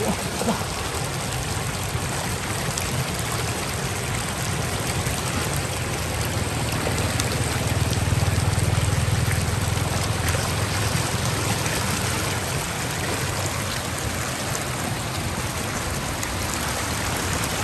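Steady rush of flowing water, swelling with a deeper rumble about eight seconds in.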